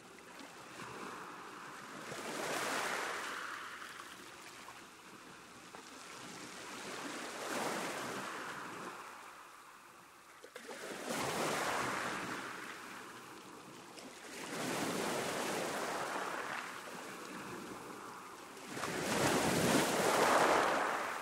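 Sea waves breaking on a shore: about five swells of surf that build and wash back, one every four to five seconds, the last one loudest near the end.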